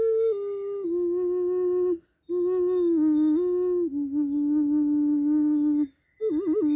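Round vessel ocarina playing a slow melody of held notes in a D# minor pentatonic scale tuned to 432 Hz, the notes mostly stepping downward. The tone breaks off for breath twice, about two seconds in and near the end, followed by a quick trill.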